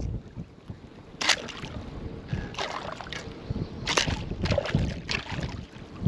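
Shallow water sloshing around a wading angler, with about four short, sharp splashes, as a caught fish is unhooked and put on a wade stringer.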